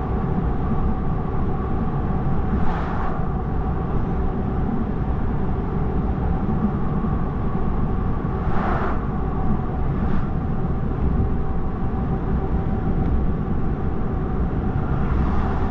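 Road and wind noise inside a car driving at motorway speed: a steady low rumble with a faint steady hum, and a few brief swells of noise as other vehicles go by.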